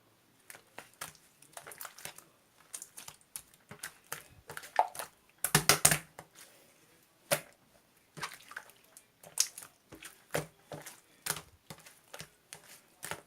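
A series of irregular sharp clicks and taps, some in quick clusters, the loudest cluster about six seconds in.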